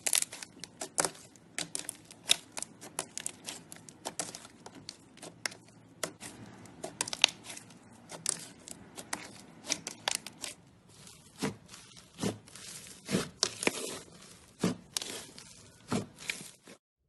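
Slime being squeezed and pressed by hand, giving irregular sharp crackles and pops, several a second, that stop abruptly near the end.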